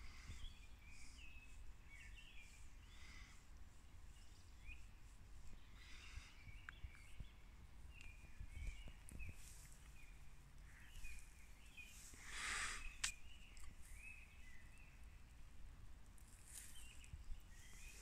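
Faint distant birdsong at dusk: several birds giving short chirps and song phrases scattered throughout, over a low rumble. A brief rushing hiss comes about twelve seconds in.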